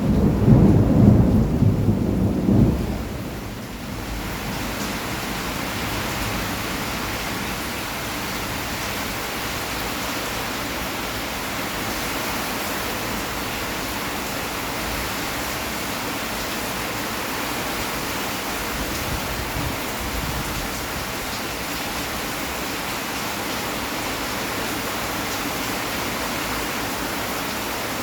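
Heavy rain falling in a thunderstorm. A deep rumble of thunder dies away over the first three seconds, then a steady downpour goes on.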